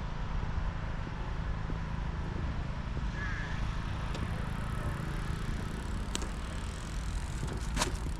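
Steady low rumble of distant city traffic, with a brief faint high warble about three seconds in and two sharp clicks, about six and nearly eight seconds in.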